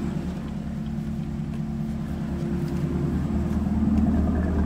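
Chevrolet Camaro's engine idling steadily, an even low rumble.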